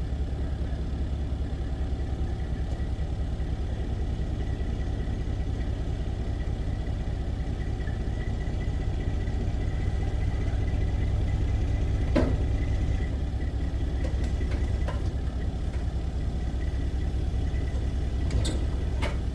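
Heavy vehicle engine idling steadily, with a few sharp metallic clanks about twelve seconds in and again near the end.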